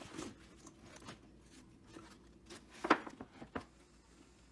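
Faint handling of a fabric tool bag: a few short rustles and light taps of fabric and tools, the loudest about three seconds in.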